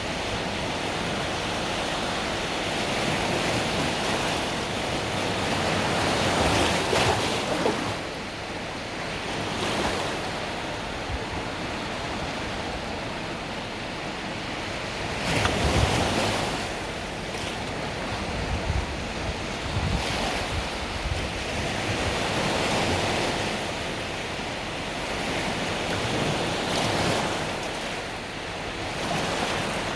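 Mediterranean sea waves washing onto the beach, the surf swelling and falling back every few seconds, with a few louder breaks. Light wind on the microphone.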